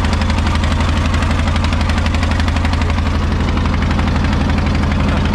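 Wooden boat's engine running steadily under way, a loud, even, rapid beat.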